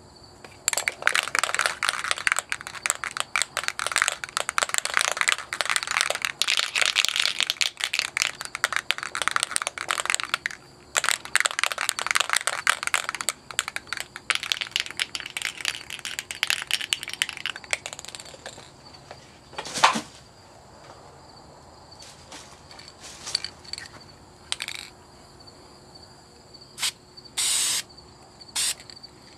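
An aerosol spray-paint can (Krylon Fusion for plastic) shaken hard for about seventeen seconds, its mixing ball rattling fast. A single click follows, then several short hisses of spray near the end as green paint goes onto the plastic paddle blade.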